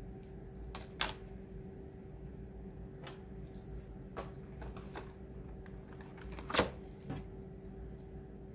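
Cosmetic items and their plastic packaging being handled and set into a tissue-lined cardboard box: scattered light clicks and knocks. The loudest comes about a second in and another about two-thirds through. A faint steady hum runs underneath.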